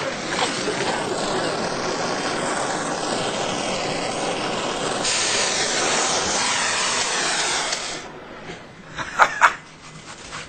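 Hand-held gas torch flame hissing steadily, turning harsher about halfway through, then cutting off. A couple of short sharp knocks follow near the end.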